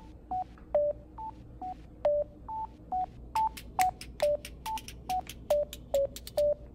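Sparse background music: short, clicky single notes picked out on three pitches, high, middle and low, about three notes a second.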